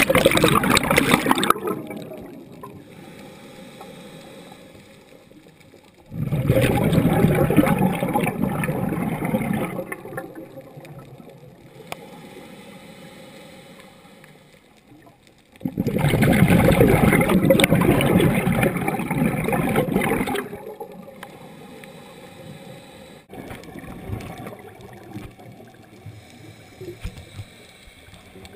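Scuba diver's exhaled bubbles from the open-circuit regulator, heard up close underwater: a loud bubbling burst at the start, another about six seconds in and a third about sixteen seconds in, each lasting about four seconds, with low gurgling between breaths.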